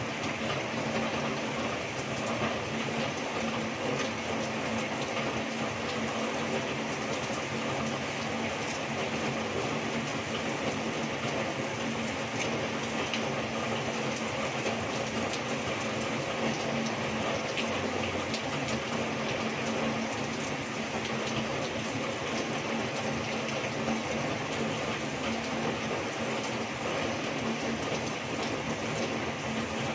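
Heavy rain pouring down steadily, with water streaming off the edge of a roof.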